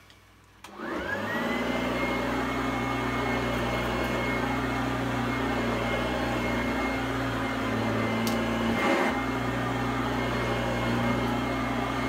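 Fakir 350 softbag vacuum cleaner switched on just under a second in: its motor whine rises to speed, then the machine runs steadily. There is a brief bump about nine seconds in.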